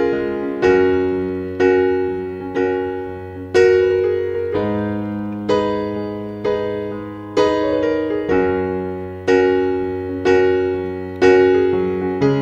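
Background music: a slow piano piece, chords struck about once a second and left to ring and fade.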